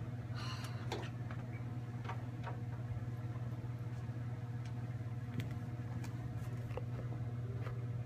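Steady low hum of room noise, with scattered light knocks and clicks as the guitar is put down and the camera is handled and moved.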